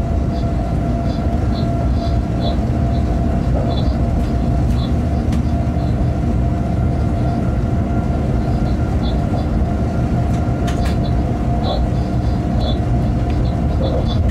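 Steady running noise of a freight train heard from the locomotive cab on the move: a dense low rumble with a constant hum, and short high chirps repeating irregularly.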